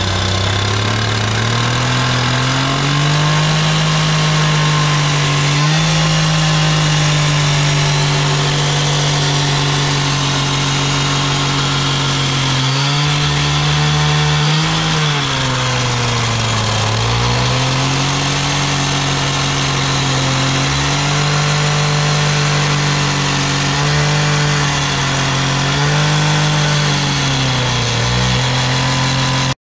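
Gas-powered cut-off saw running at high revs as it cuts through the sewer main pipe, with a gritty hiss from the blade. The engine pitch sags each time the blade bites and picks back up as it frees, most deeply about halfway through.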